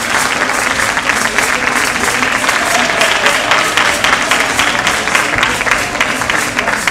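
An audience applauding, a dense, steady clapping, with music underneath.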